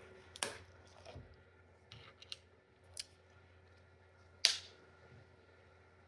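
Scattered soft clicks and small handling and mouth sounds from someone eating, with one sharper, louder click about four and a half seconds in.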